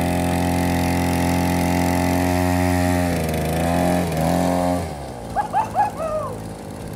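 A 50cc two-stroke mini dirt bike engine running at a steady pitch, dipping and rising with the throttle around the middle, then falling away about five seconds in as the bike rides off. A few short high chirps follow near the end.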